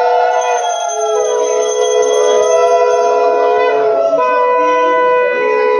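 Several conch shells (shankha) blown together in long held notes at different pitches, some sliding slowly up and down, as ritual sounding at a Hindu ceremony. Another held note comes in about four seconds in.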